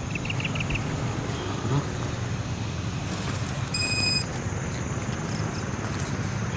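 Brushless electric motor of a foam RC plane driving its propeller, heard from an onboard camera as a steady rough buzz mixed with wind rush. A few short high chirps just after the start and a short high tone about four seconds in.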